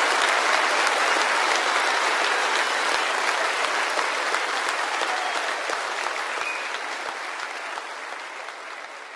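Audience applauding, a dense patter of many clapping hands that fades out gradually toward the end.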